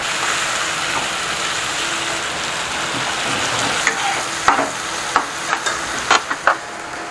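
Tomato, onion, garlic and spices sizzling steadily as they fry in mustard oil in a pan, with a spatula clinking and scraping against the pan several times in the second half as the mixture is stirred.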